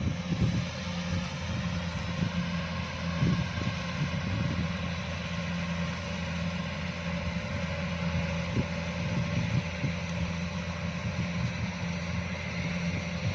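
Kubota DC-105X combine harvester's diesel engine running steadily with a constant low hum and mechanical noise while harvesting rice.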